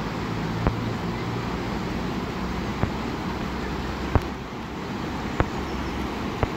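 Whitewater of a fast river's standing wave rushing steadily, with a low hum of road traffic underneath and five sharp clicks from the phone being handled.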